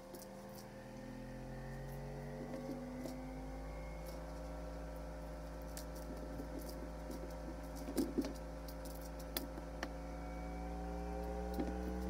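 Scattered light taps and a few sharper thumps as a kitten runs and pounces on a wooden floor and rug after a feather wand toy, the loudest a pair about two-thirds of the way through. Underneath is a steady low hum with soft, long tones that slowly glide in pitch.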